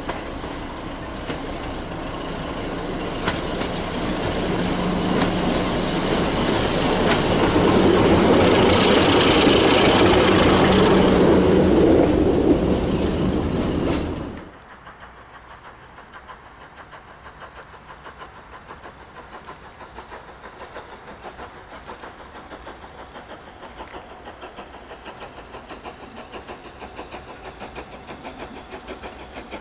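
British Rail Class 33 diesel locomotive with its Sulzer eight-cylinder engine approaching and passing underneath, its engine note and wheel clatter growing louder to a peak about ten seconds in. The sound cuts off suddenly about fourteen seconds in. After that comes a much quieter steady sound with faint regular beats.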